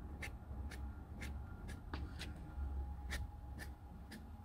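Paintbrush bristles swishing across a damp canvas in short press-and-release leaf strokes with acrylic paint, a faint quick swish about twice a second, over a low steady hum.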